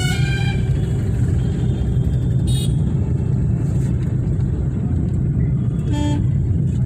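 Steady engine and road rumble inside a moving car's cabin, with short horn toots from the surrounding traffic: one right at the start, a brief high-pitched beep about two and a half seconds in, and a short toot about six seconds in.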